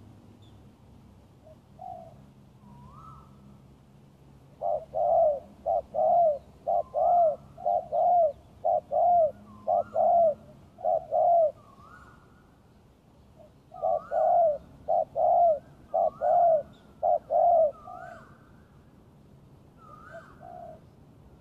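Spotted dove cooing: two long runs of rapid repeated coos, the first starting about five seconds in and lasting some seven seconds, the second starting about fourteen seconds in and lasting about four, with shorter, higher notes scattered between.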